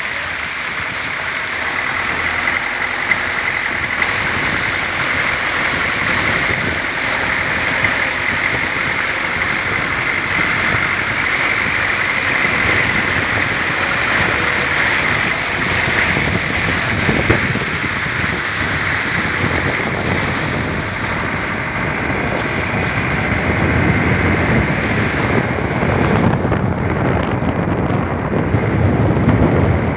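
Steady rushing spray of a vehicle's tyres ploughing through flood water over the road, with the engine running underneath. Toward the end it turns to a low rumble of wind on the microphone.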